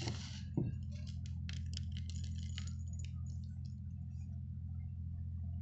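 Meat grinder motor humming steadily while crushing candy. A run of small crisp clicks and crackles comes through the first three seconds, with a single louder knock about half a second in.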